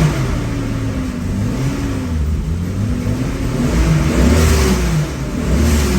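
Toyota Supra's inline-six engine running and being revved several times, its pitch rising and falling with each blip of the throttle.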